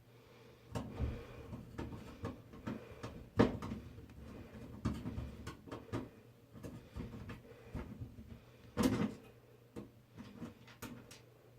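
Irregular knocks, clicks and rattles of hands, a screwdriver and screws working on a computer case while a motherboard is fitted, with two louder knocks, one about a third of the way in and one about three quarters in.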